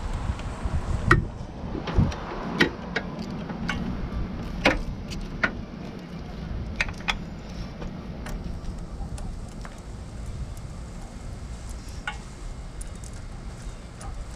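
Scattered metallic clinks and taps of hand tools and small fasteners during engine-bay disassembly, busier in the first half, over a low rumble.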